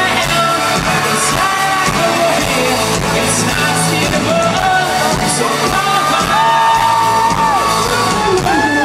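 Live pop-rock band playing a song with a lead singer, who holds a long note in the last third. Recorded from among the crowd on an iPod's built-in microphone.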